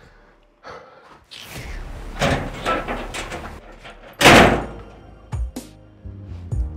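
A door being opened and then slammed shut about four seconds in, which is the loudest sound. Music with sharp hits comes in just after the slam.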